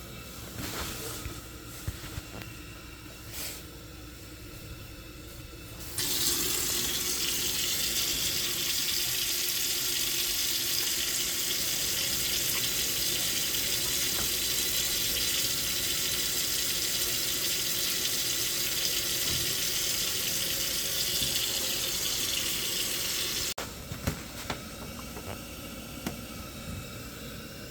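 Water running hard from a tap as a steady rush. It starts suddenly about six seconds in and is shut off abruptly some seventeen seconds later, with a few light clicks before and after.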